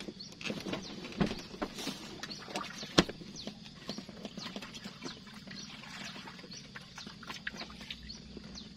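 Scattered small clicks and short chirping calls, with one sharp knock about three seconds in.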